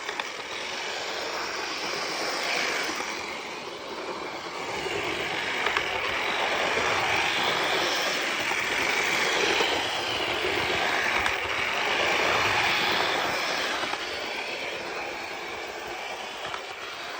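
Jouef HO-scale model of an SNCF BB 12000 electric locomotive running round a small layout, its electric motor whirring and its wheels rolling on the rails, the motor now driving the wheels through a new silicone band. The sound grows louder and fainter several times as the locomotive circles past.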